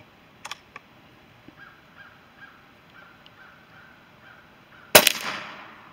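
Umarex Gauntlet .25 PCP air rifle firing one shot about five seconds in: a single sharp crack of released compressed air with a short fading tail.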